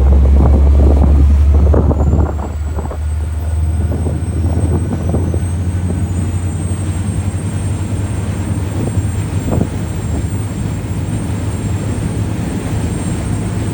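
A boat's engine drones steadily as a deep, even hum. Wind buffets the microphone and eases about two seconds in.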